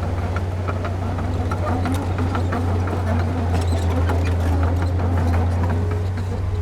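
Heavy diesel construction machinery running steadily, a deep engine drone, with scattered sharp clanks from rock and metal at work.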